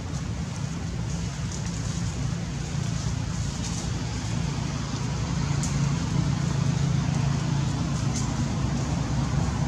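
A steady low engine rumble that grows a little louder about five seconds in.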